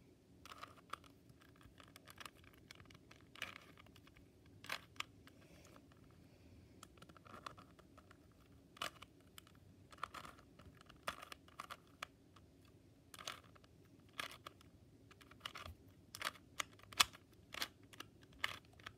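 Rubik's Cube layers being turned by hand: a string of quick plastic clicks and scrapes, coming in irregular runs of turns with short pauses between.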